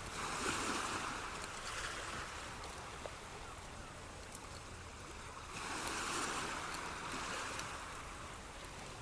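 Ocean waves washing in: two slow swells of hiss about five seconds apart, each rising quickly and then fading, over a steady background of noise with faint scattered ticks.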